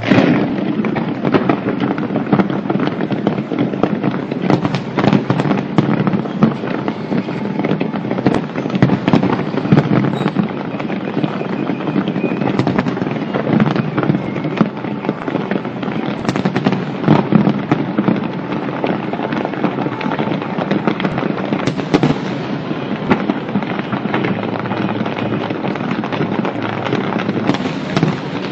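Fireworks going off in a dense, unbroken barrage of rapid crackles and bangs.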